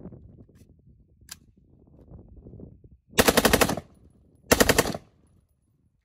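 Two bursts of rapid automatic fire from a drum-fed AR-15-style rifle. The first comes about three seconds in and lasts under a second; the second is shorter and comes about a second later.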